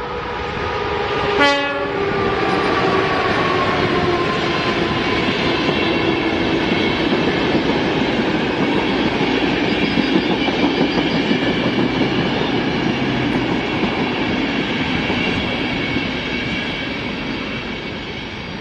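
PKP EP09 electric locomotive and its passenger coaches passing at speed. A short, sharp horn blast comes about a second and a half in, and the locomotive's whine falls in pitch as it goes by. The rumble and clatter of the coaches' wheels on the rails follows, fading near the end.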